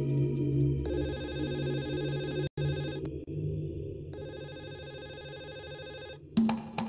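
Mobile phone ringing twice, each ring about two seconds long with about a second's pause between, over a low background music drone. A sharp click comes near the end.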